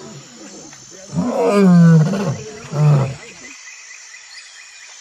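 Lion roaring: one long roar falling in pitch about a second in, followed by a shorter grunt near the three-second mark.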